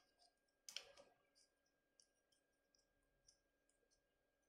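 A few faint plastic clicks about a second in, from the small jointed legs of a 1:18 scale toy sentry drone being handled; otherwise near silence.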